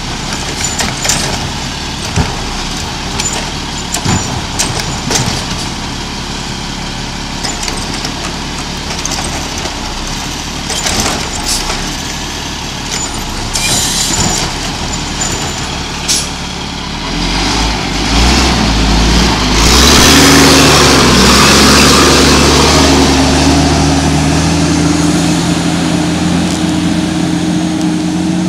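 GMC Heil Rapid Rail side-loader garbage truck's diesel engine idling, with scattered knocks and short hisses of air. About 17 seconds in, the engine rises in pitch and loudness as the truck pulls away and accelerates.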